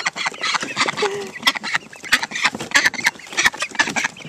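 Domestic ducks quacking, many short quacks in quick succession and overlapping, with other backyard poultry calling among them.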